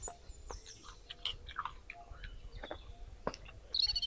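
Chewing and soft mouth sounds of a man eating a meal of rice and vegetables by hand, with scattered small clicks. Birds chirp in the background, with a louder warbling call near the end.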